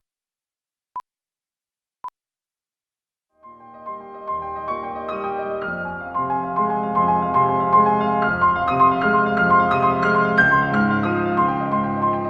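Two short high beeps a second apart, then a piano-led music track builds in a little over three seconds in and plays on with dense, layered chords.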